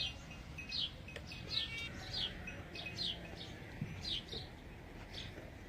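Small bird chirping repeatedly: short, high chirps that fall in pitch, about two a second.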